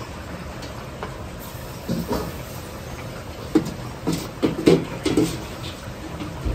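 Chicken and potato pieces deep-frying in a wok of hot oil: steady sizzling and bubbling over a low background rumble, with a few short knocks between about two and five seconds in.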